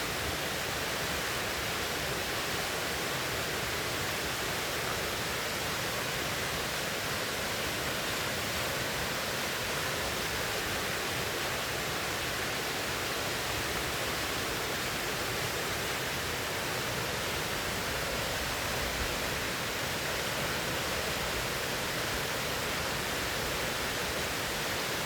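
River water rushing steadily over rocks, an even unbroken roar of flowing water.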